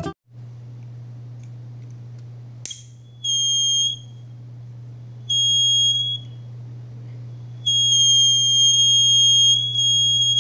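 Piezo buzzer of a breadboard flame-sensor circuit sounding a high, steady tone three times (short, longer, then longest near the end) as a lighter flame is held near the sensor: the buzzer signals that the sensor has detected the flame. A click comes just before the first tone, and a low steady hum runs underneath.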